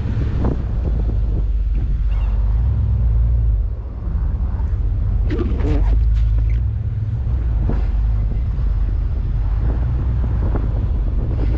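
Wind buffeting the microphone over the low, steady rumble of an idling Ram pickup truck's engine, with a brief noise about five and a half seconds in.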